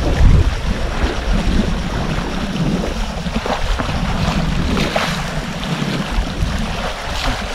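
Small waves washing and splashing over shallow reef rocks, with wind rumbling on the microphone.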